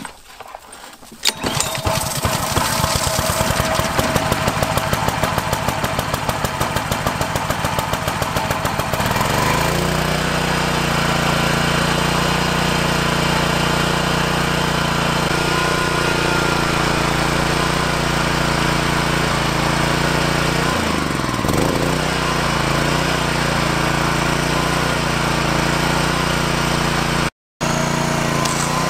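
Honda GCV160 single-cylinder four-stroke engine, fitted with a $20 aftermarket carburetor, pull-started on choke. It catches about a second in, runs with a fast even beat, and settles to a steady even note after about nine seconds: the earlier hunting idle is cured. Its speed dips briefly and recovers about two-thirds of the way through.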